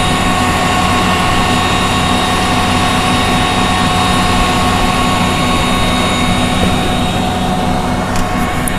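Concrete mixer truck's diesel engine running steadily, with a low rumble and a steady hum, as concrete is discharged down its chute onto a rebar-reinforced slab.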